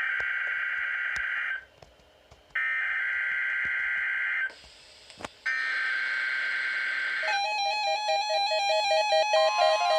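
NOAA Weather Radio SAME header data bursts: a harsh, buzzy digital screech sent three times, about a second apart, opening the weekly test of the alert system. From about seven seconds in, a rhythmic, musical pattern of alternating beeping tones starts.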